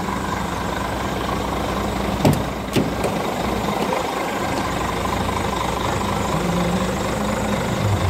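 Scania R410's six-cylinder diesel engine idling steadily. Two sharp knocks sound about two seconds in, half a second apart.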